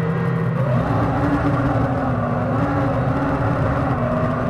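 Battery-powered electric jet drive of a home-built jet kayak whining as it accelerates, its pitch rising about a second in and then holding steady, with water rushing and spraying along the hull.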